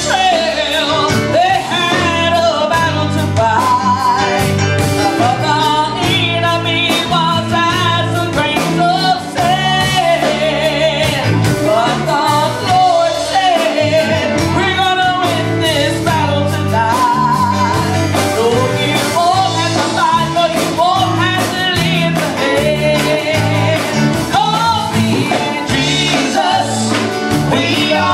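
A woman singing a gospel song with a band, her held notes wavering with vibrato over bass, guitar and a steady beat.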